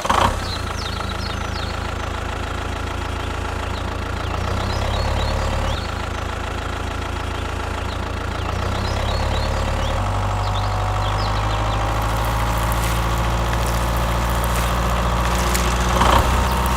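Motor of a DIY mini construction machine running steadily, a continuous mechanical hum that shifts in tone about six and ten seconds in.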